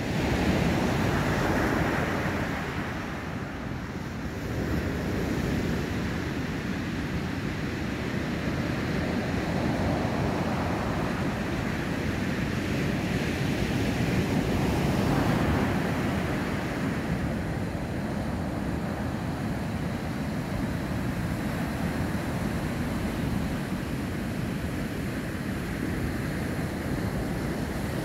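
Pacific Ocean surf breaking and washing up a sand beach: a continuous rushing roar that swells and eases as each wave breaks.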